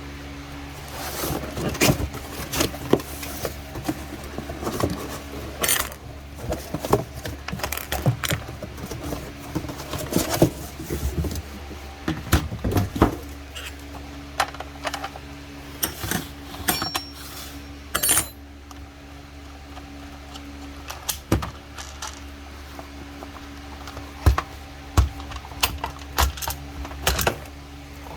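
Irregular metallic clinks and knocks as a Stihl chainsaw's chain, guide bar and cover are handled and fitted, over a steady low hum.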